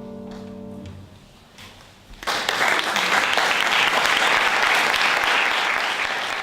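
The last chord of a piece of music rings out and dies away within the first second. About two seconds in, an audience breaks into loud applause that carries on steadily.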